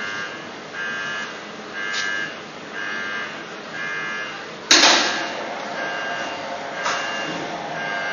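Warning beeper of an automated tower parking lift, beeping about once a second while the car pallet moves. About halfway through there is a loud clunk, after which the lift machinery runs with a steady hum under the beeps.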